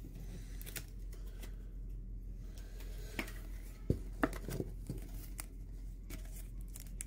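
A trading card being slid into a clear plastic sleeve by hand: soft crinkles and a few sharp plastic clicks, most of them about three to five seconds in, over a low steady hum.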